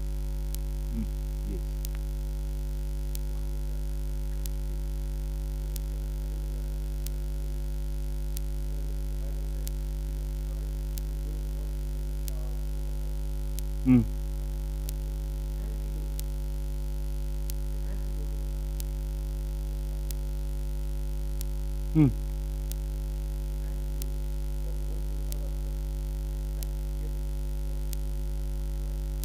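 Steady electrical mains hum with a ladder of overtones on the recording, with two brief loud sounds about 14 and 22 seconds in.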